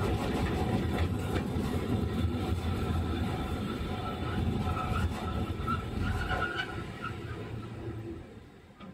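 Sapporo streetcar M100-class tram running along the track, heard from inside the car as a steady low hum and rumble. A faint squeal comes in about five to six seconds in, then the running noise dies away near the end as the tram slows to a stop.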